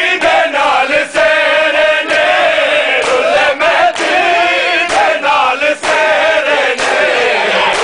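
A crowd of men chanting a Muharram nauha (lament) in unison, with sharp slaps of hands beating on bare chests (matam) landing about once a second.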